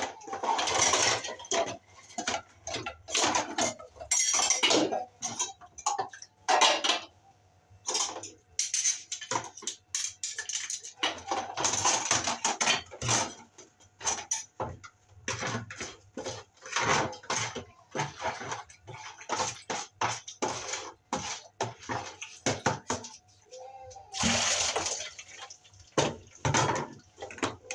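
Dishes being washed by hand in a basin: metal bowls and cups clink and knock against each other again and again, with bursts of water splashing several times.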